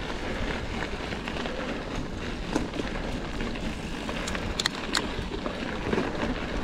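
Gravel bike rolling along a track: steady tyre noise with a low rumble, and a few sharp clicks and rattles, most of them a little after the middle.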